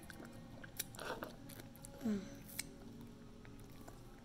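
A child's mouth sounds as he licks sour candy off his fingers and chews: soft wet clicks and smacks, with a short falling vocal hum about two seconds in.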